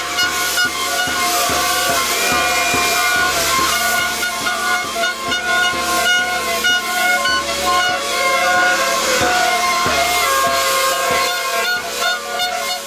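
Many air horns sounding at once in a dense, continuous chord of overlapping held notes at different pitches, with a hiss over them. Individual horns drop in and out, and some notes sag in pitch as they tail off.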